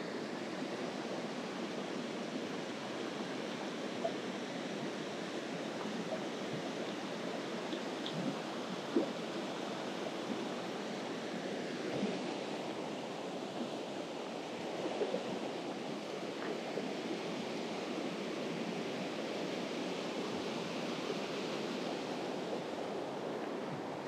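Mountain stream water rushing steadily, with a few faint clicks and knocks here and there.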